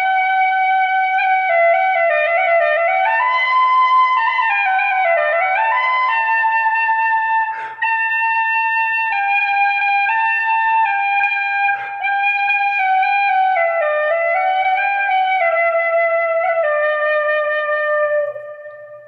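Celtic flute playing a slow solo melody, with slides and ornaments between the notes. There are two short breath breaks, about 8 and 12 seconds in, and the last note fades out just before the end.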